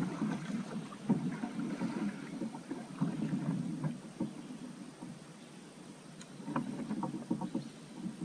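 Double-bladed paddle stroking a sit-on-top fishing kayak through calm creek water: irregular dips and splashes with light knocks, in two bouts with a lull between them.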